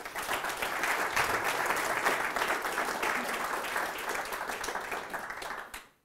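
Audience applauding, a dense steady patter of many hands clapping that fades out just before the end.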